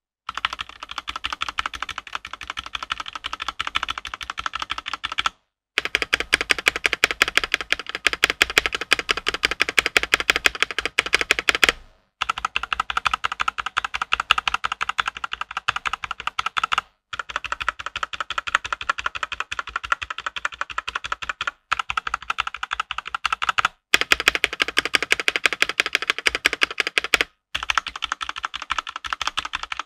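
Fast typing on a Rexus Daxa M64 Classic mechanical keyboard with Gateron Yellow KS9 linear switches: a dense patter of keystrokes in several stretches, each ending in a brief silent break. The stabilizers are pre-lubed and do not rattle or tick, and the reviewer still hears some spring ping from the stock switches.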